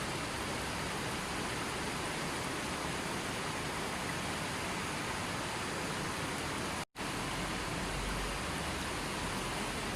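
River water rushing in a steady, even flow. It cuts out completely for an instant about seven seconds in.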